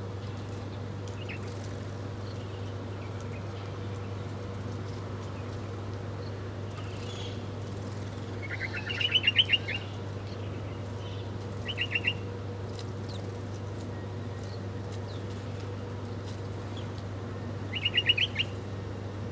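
A small bird chirping in three short bursts of quick, evenly repeated notes: one near the middle, one a few seconds later and one near the end, over a steady low hum.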